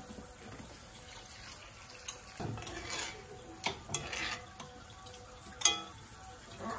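A spoon stirring shredded red cabbage in sauce in a cast-iron skillet, with wet swishing and a handful of sharp clinks against the pan. The loudest clink comes near the end.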